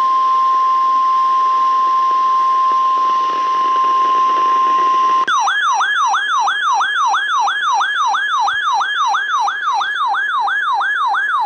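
Weather radio alert: the steady 1050 Hz NOAA Weather Radio warning alarm tone for about five seconds. It switches abruptly to a warbling siren-like alarm that sweeps up and down about three times a second. The alarm heralds a tornado warning.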